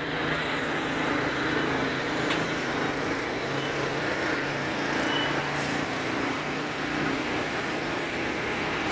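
Nitrogen tyre-inflation machine running, filling the deflated tyres: a steady hiss with a low hum that comes and goes.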